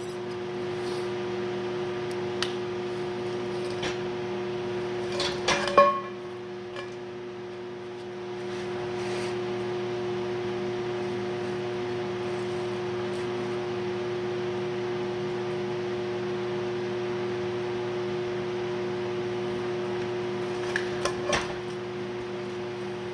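Steady electrical hum of shop equipment under an even hiss, broken by two short clusters of metal clinks and taps, about five to six seconds in and again near the end, the first being the loudest.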